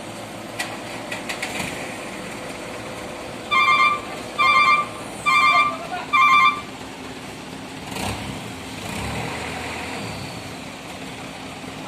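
Reversing alarm beeping four times at an even pace, over a steady engine running.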